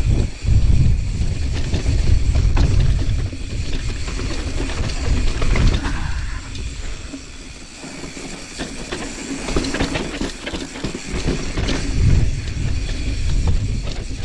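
Mountain bike rolling down a rough dirt trail: wind rumbling on the microphone over tyre noise and a continual rattle of chain and frame over bumps. It eases off for a couple of seconds past the middle, then picks up again.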